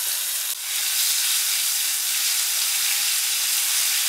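Ground spice paste sizzling steadily in hot oil in a frying pan, with curry leaves and fenugreek seeds frying alongside, briefly dipping about half a second in.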